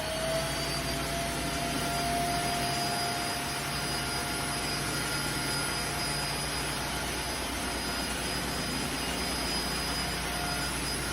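Tineco Floor ONE S3 cordless wet-dry floor cleaner running: a steady motor whine over a rushing suction noise. The whine fades shortly before the end.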